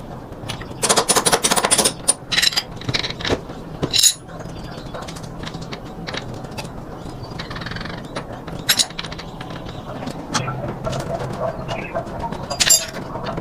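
Metal tools and parts clinking and clattering in irregular bursts during motorbike repair work, with a dense run of clinks about a second in and single sharp clinks later.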